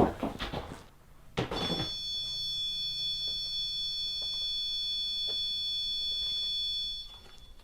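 A knock, then a REM pod ghost-detection device sounding a steady, high electronic alarm tone for about five seconds before it cuts off suddenly. The alarm is the sign that something has disturbed its electromagnetic field, which ghost hunters take as a presence.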